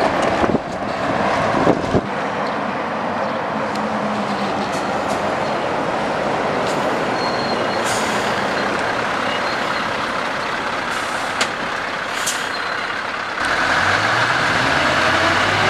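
Scania V8 lorries driving past: diesel engine running under a steady wash of tyre and road noise. A short air hiss comes about twelve seconds in, and near the end an engine pulls away, its pitch rising.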